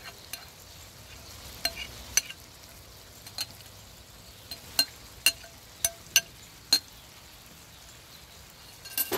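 Browned ground beef sizzling steadily in a cast iron skillet while diced onions are knocked out of a glass bowl, with about ten sharp, ringing clinks of glass and utensil spread through, the loudest in the middle.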